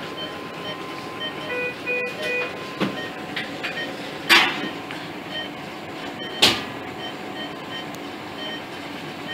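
Bedside patient monitor beeping with regular short beeps throughout, with a brief multi-tone chime about two seconds in. Two sharp knocks stand out, one a little before the middle and one a little after.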